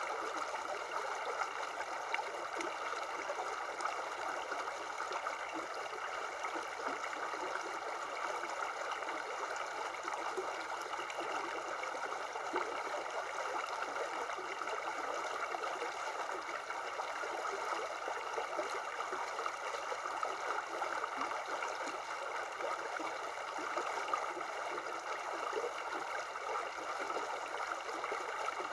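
Shallow river running over stones: a steady sound of flowing water that does not change.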